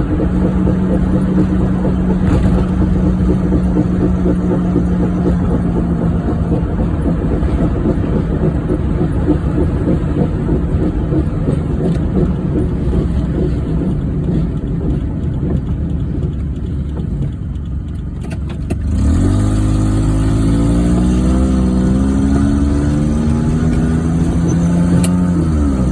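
1994 Geo Metro driving, engine and road noise from a car with a bad wheel bearing. About three-quarters of the way through the engine picks up and climbs steadily in pitch as it accelerates, then drops back near the end.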